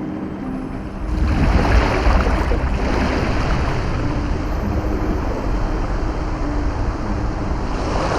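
Rushing surf-like noise that swells up about a second in and again near the end, over faint held musical notes.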